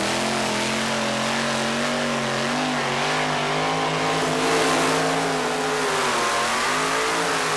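Super Modified two-wheel-drive pulling truck's engine running at high revs under heavy load as it drags the weight-transfer sled down the dirt track. The pitch holds nearly steady with small wobbles and rises briefly about four and a half seconds in, where it is loudest.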